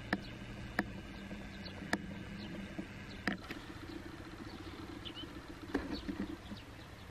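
A steady low engine hum, like a motor idling, with several sharp clicks scattered through it.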